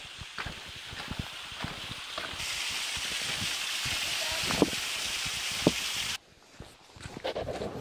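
Footsteps on a wet, stony mountain path, over a steady hiss of wind and rain that grows louder about two seconds in and cuts off abruptly near the end.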